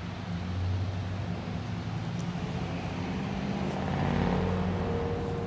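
A motor vehicle's engine running with a low, steady hum that grows a little louder about four seconds in, a higher steady tone joining it near the end.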